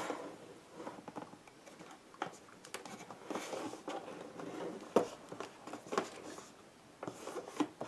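Cardboard product box being handled, turned over and worked at to open it on a wooden desktop: scattered light rustles and taps, with a sharper knock about five seconds in and another about a second later.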